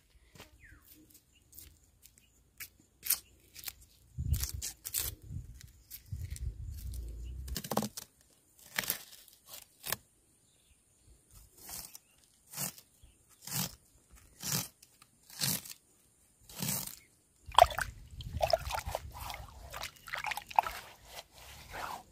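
Hand-peeling garlic cloves: the papery skins crackle and crunch in short separate bursts about once a second. Near the end, a low grinding rumble with sharper scrapes as ingredients are worked in a hollowed stone mortar.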